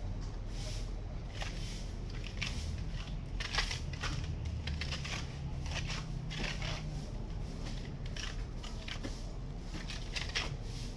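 Irregular gritty crunching and scraping strokes from concrete and gravel being worked during a road concrete pour, over a steady low machine hum.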